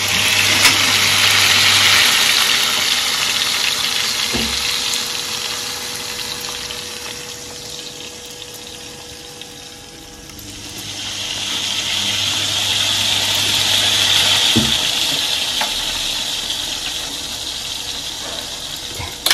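Chicken pieces frying in olive oil in a paella pan, a dense sizzle that swells and fades twice, with a couple of soft knocks.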